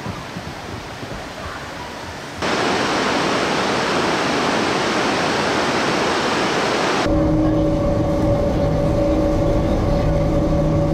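A steady outdoor rush of air and water. About two seconds in it gives way abruptly to a louder, even rush of river water and a waterfall. About seven seconds in that gives way to the low rumble and steady hum of a passenger boat's engines, heard from inside the cabin.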